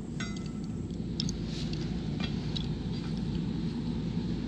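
A few faint metallic clicks and scrapes, one with a brief ring, as a valve stem puller is fitted onto a new valve stem through a steel wheel's valve hole, over a steady low background rumble.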